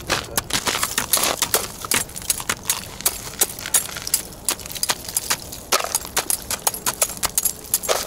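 Steel ice chisel chopping into lake ice, with rapid, irregular sharp strikes and chunks of ice clinking. The hole is being chipped clear to get at a triggered tip-up frozen into the ice.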